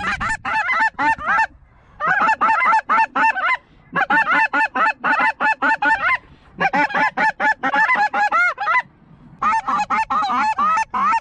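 Snow goose call blown in five quick runs of sharp, high honking notes, about five notes a second, with short pauses between runs: a hunter calling to a flock of snow geese circling the decoys.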